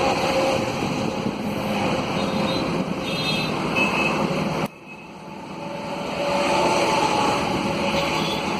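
Steady street traffic noise. About halfway through it drops suddenly, then swells back up over a couple of seconds.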